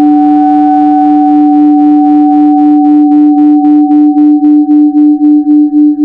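Mock Emergency Alert System alarm: a loud synthesized alarm tone, a low pitch and a higher pitch sounding together. About a second in it begins to throb, and the pulses grow more distinct toward the end, at about three to four a second.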